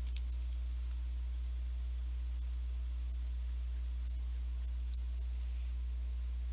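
Stylus scratching and tapping quickly on a drawing tablet as a sponge brush is dabbed on, in faint irregular ticks over a loud, steady low electrical hum.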